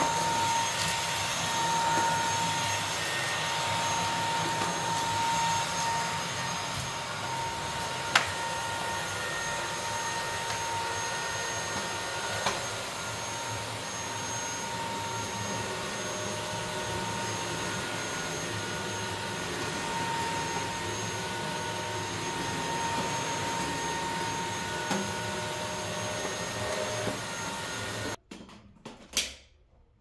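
Beko cordless stick vacuum cleaner running steadily with a high whine over a tile floor, with a couple of sharp knocks along the way. The motor noise cuts off suddenly about two seconds before the end, and a few knocks follow.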